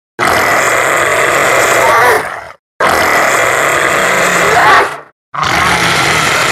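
A harsh, rough creature roar sound effect, each call lasting about two seconds, repeated three times with short silences between.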